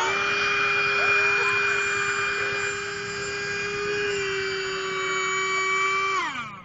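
Radio-controlled electric speedboat running at full throttle: a steady, high motor whine that drops in pitch and fades near the end.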